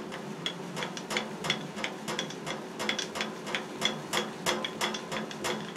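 Light, regular metallic clicking, about three to four clicks a second, as the lead screw in a Clausing surface grinder's column is cranked to bring the lift block all the way down.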